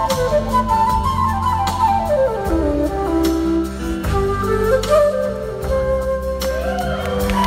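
Live band playing with a flute taking the lead melody, one line that dips low in the middle of the phrase and climbs back, over bass, drums and guitar.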